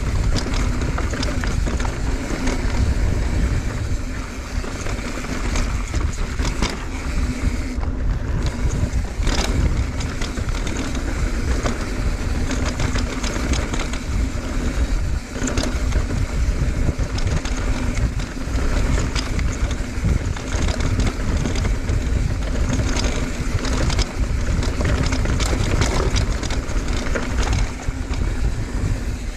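Wind buffeting the microphone of a rider descending fast on a mountain bike, with tyre noise and scattered rattling clicks from the bike on a rough trail.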